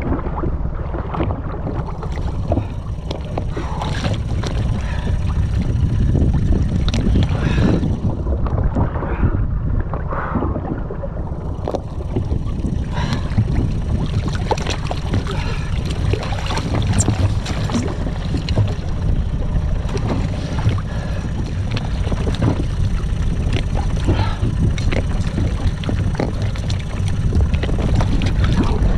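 Water splashing and slapping against the side of an inflatable boat as a hooked ahi tuna is held and gaffed alongside, with many short irregular splashes. A heavy low wind rumble on the microphone runs under it.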